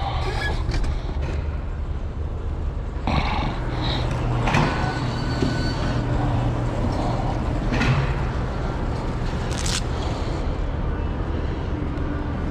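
Cab of a 1984 Peterbilt 362 cabover being tilted forward, giving several clanks and knocks about three, four and a half, eight and ten seconds in, over a steady low hum.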